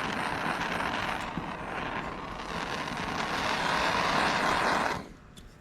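Steady blowing hiss of a heat tool shrinking heat-shrink tubing over a freshly soldered battery-lug joint, shut off abruptly about five seconds in.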